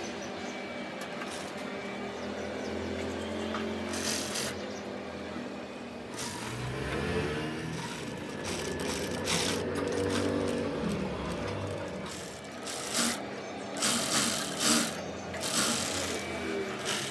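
JUKI industrial sewing machine running as fabric is stitched, its motor humming steadily and speeding up and slowing down in the middle, with several short, loud bursts of stitching near the end.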